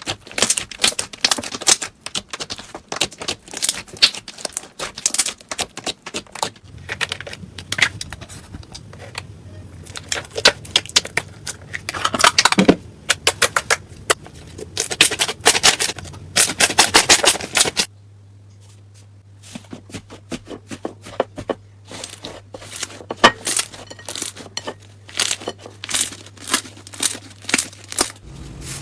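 Slime being squished and poked by hand, giving dense runs of crackling, popping clicks. The runs break off about 18 s in and pick up again after a short lull.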